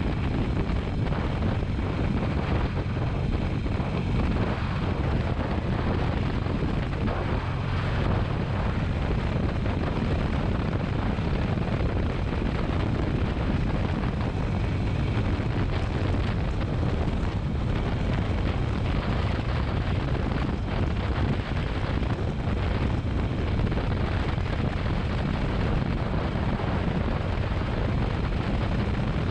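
Motorcycle riding at a steady speed: the engine running under a steady rush of wind over the microphone.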